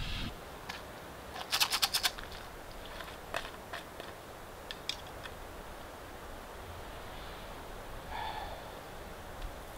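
Quiet outdoor air with a quick run of sharp metallic clinks about one and a half seconds in, then scattered small clicks and knocks as a camp mug is handled.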